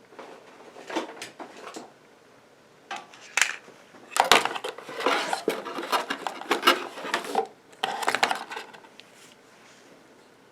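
Handling noises: a run of small knocks, clicks and rustles as objects are moved about and set down, in two bouts with the busiest and loudest stretch from about 4 to 9 seconds in.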